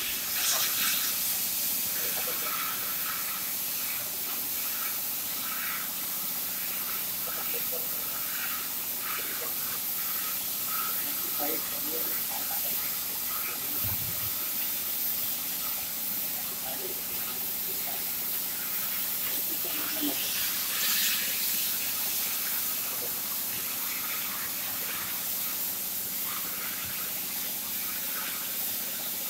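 Steady hiss of a CNC profile cutting machine's cutting torch running through a cut, with a low steady hum beneath it.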